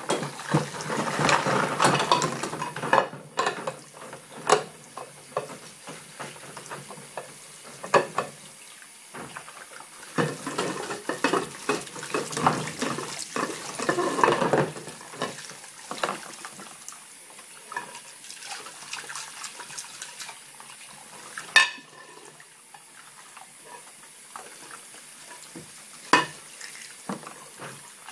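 Kitchen tap running into a sink while dishes are washed by hand: water splashing over a stainless steel pot and plates as they are scrubbed and rinsed. Louder spells of splashing and scrubbing come in the first few seconds and again in the middle, with a few sharp clinks of dishes knocking together.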